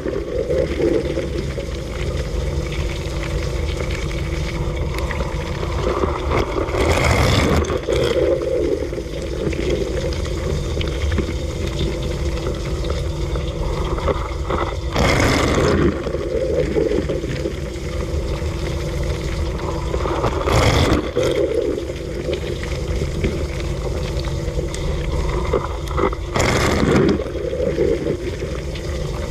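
Dishwasher running through a wash cycle: a steady pump hum under sloshing water, with a louder surge of spraying water about every six to eight seconds.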